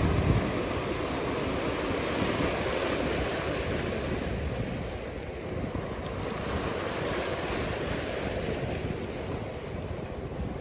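Ocean surf with wind rushing over the microphone, a steady rush with a low rumble that is strongest right at the start and eases off slightly after that.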